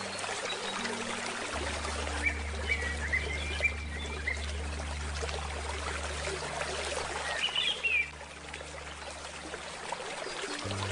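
Flowing river water with small birds chirping in short runs, twice, over soft, low, sustained musical tones.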